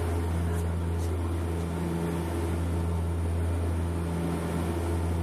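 Steady drone of a light propeller aircraft's engine heard inside the cabin: a strong low hum with a few steady tones above it.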